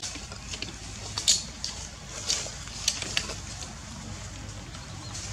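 Macaque eating a banana: a handful of irregular wet smacking and squishing sounds from its mouth and the fruit, a few seconds in, over a steady outdoor hiss.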